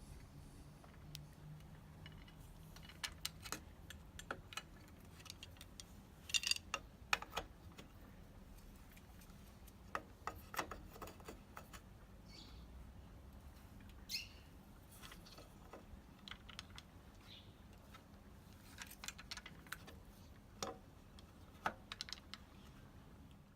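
Irregular light clicks and taps of a bottom bracket tool and wrench working on the cups as a Shimano SM-BBR60 bottom bracket is tightened down into the frame, coming in small clusters with pauses between.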